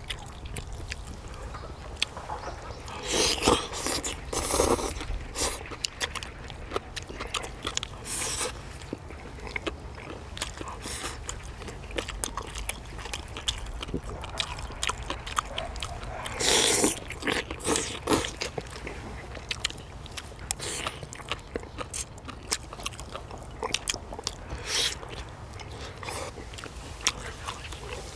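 Close-up eating sounds of two people chewing braised chicken and dried radish greens: wet chewing and lip smacks with many small clicks, and a few louder bites or slurps, once a few seconds in, again past the middle and once near the end. A steady low rumble runs underneath.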